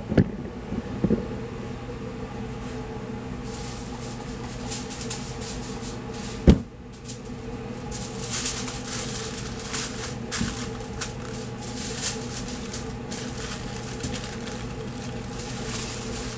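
Aluminium foil crinkling and rustling in quick bursts as it is folded around a smoked brisket, from about eight seconds in, over a steady machine hum. A single sharp thump about six and a half seconds in is the loudest sound.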